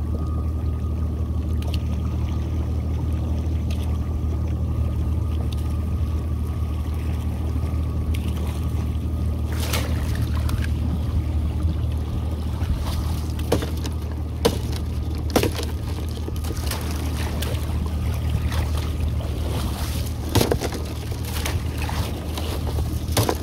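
Small workboat's motor running slowly with a steady low drone while water trickles and splashes along the hull as the boat runs a crab trotline. From about ten seconds in come scattered sharp clicks and splashes.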